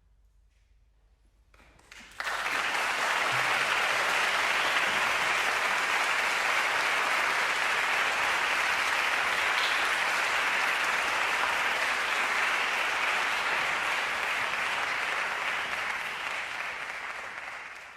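Audience applauding: after about two seconds of near silence the applause breaks out all at once, holds steady, and tapers off near the end.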